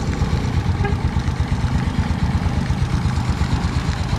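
Suzuki Smash 115 single-cylinder four-stroke engine, freshly fitted with a 57 mm big-bore cylinder block, idling steadily with an even pulse. It is on a long warm-up to bed the new piston into the cylinder bore.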